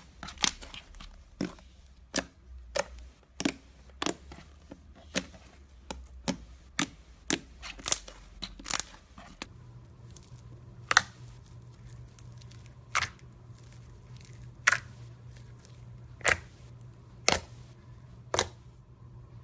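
Slime being pressed and squeezed, giving sharp crackling pops, about one to two a second at first, then fewer and farther apart in the second half.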